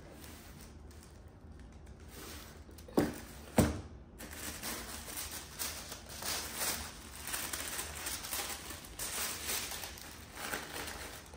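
Paper and cardboard rustling and crinkling as a shoe box is opened and its wrapping handled, with two sharp knocks about three seconds in.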